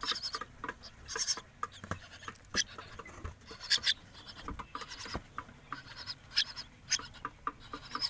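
Scratching and rustling inside a cloth-lined cardboard box as two common myna chicks are fed with a thin stick. It is an irregular run of short, sharp scrapes and taps.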